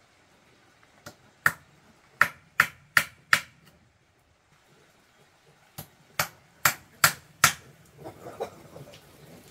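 Repeated sharp hand-tool strikes in two runs, six and then five, at about two and a half blows a second, followed by softer scuffling.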